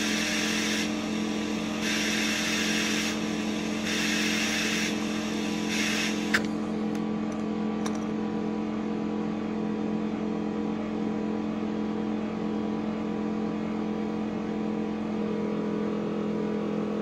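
Compressed air hissing into a tractor's narrow front tyre through an air chuck in four short spurts, then a sharp click as the chuck comes off the valve stem. A steady machine hum with an even low tone runs underneath.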